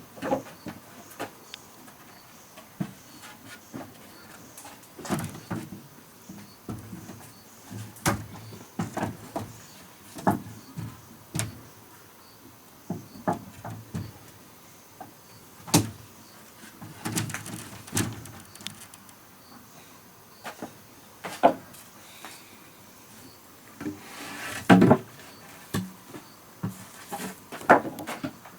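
Irregular knocks and clunks of wood being handled and struck, with the loudest about a third of the way in, halfway through and near the end.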